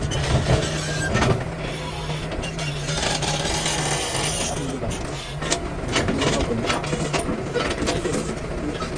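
Excavator's diesel engine running steadily under load while its bucket knocks and scrapes against blasted rock, with many sharp clanks and a longer hissing grind of rock sliding about halfway through.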